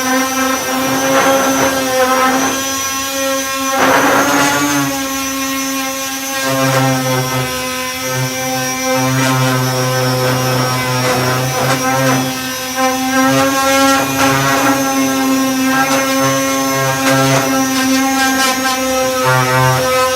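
Electric disc sander running steadily with a constant pitched hum, its 240-grit disc rasping over body filler; the scratchy sound swells and fades as the pad is pressed and moved.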